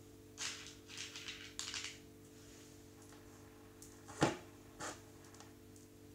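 Light scratchy rustling and tapping, then a sharp knock about four seconds in and a softer one just after, over a steady low hum.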